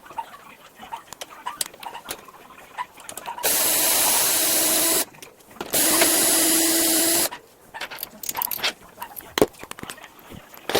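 Power drill/driver running twice, each run about a second and a half with a steady pitch and a short pause between, amid light clicks and knocks of handling.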